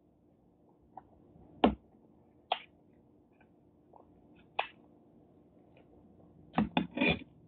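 Eating and hand sounds while picking at king crab legs and shrimp: a handful of short, sharp wet clicks and smacks from the mouth and fingers, spaced out, with a quick cluster of three near the end.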